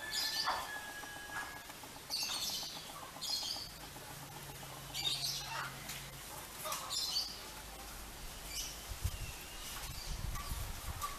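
Small birds chirping in short, irregular high-pitched bursts, with a low rumble near the end.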